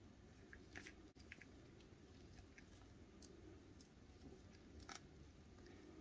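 Faint, scattered clicks of small plastic puzzle pieces handled in gloved fingers as the key piece of a plastic keychain puzzle is worked out, the clearest click about five seconds in.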